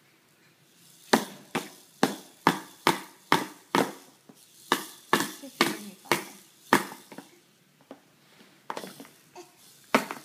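A baby banging something on a hard surface: a run of about a dozen sharp bangs, two or three a second, that stops about seven seconds in, then a few scattered ones near the end.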